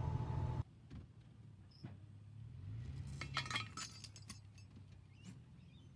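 Wind rumbling on the microphone for a moment, then a few light metallic clinks and clicks about three seconds in.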